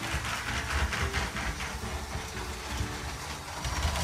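LEGO high-speed passenger train running along its plastic track under its own battery-powered motor: a steady whir with fine, rapid clicking from the wheels.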